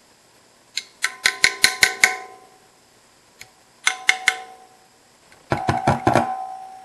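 A pencil tapping on a homemade FM transmitter's plastic box, heard through an FM stereo receiver. Each tap shakes the transmitter's spring-like oscillator coil and frequency-modulates it, so the radio gives out ringing tones. There are three bursts of quick taps: about a second in, about four seconds in, and the loudest near the end.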